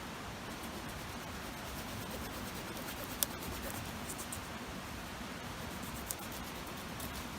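Scratching and rustling of building material being handled over a steady hiss, with a sharp click or knock about three seconds in and a smaller one about six seconds in.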